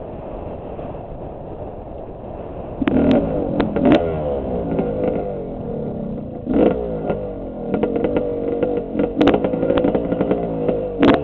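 Dirt bike engine revving up and down repeatedly while riding over rough ground, with several sharp knocks and clatter from the bike over bumps. It is quieter for the first few seconds, then the engine picks up about three seconds in.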